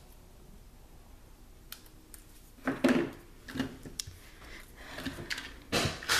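Scissors cutting paper: a handful of short, sharp snips in the second half, cutting dovetail notches into the ends of paper banners.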